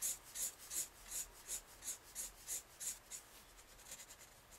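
Felt-tip marker scratching back and forth on sketch-pad paper, colouring in an area in quick, even strokes about three a second. The strokes grow fainter after about three seconds.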